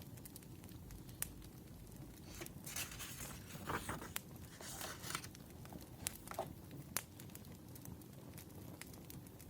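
Wood fire crackling, with scattered sharp pops. From about two and a half seconds in, a couple of seconds of rustling and crinkling, like paper being handled.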